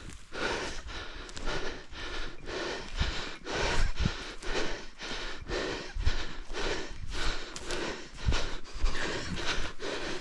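A person breathing hard and fast while on the move, about two breaths a second, with a few low footstep thuds.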